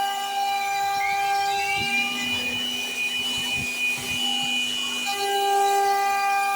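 CNC router spindle whining steadily while a V-bit carves wood, its tone shifting about two seconds in and again near five seconds.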